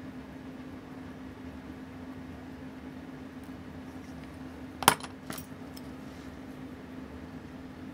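Steel watchmaker's tweezers set down on the bench: a sharp metallic clink about five seconds in and a lighter one half a second later, over a steady low hum.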